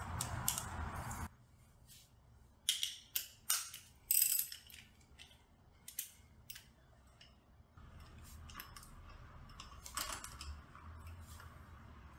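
Scattered sharp metallic clicks and clinks of hand tools and clutch parts being handled against metal, bunched in the first few seconds and again near the end, after a steady low hum that stops about a second in.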